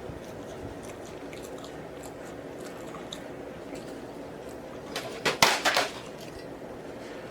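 Faint close-miked eating sounds over a low steady room hum, then a short burst of loud wet mouth smacks a little past five seconds in.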